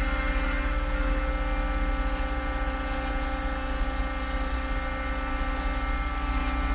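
Skid steer's diesel engine running at a steady speed, with a steady whine over a low, fast throb.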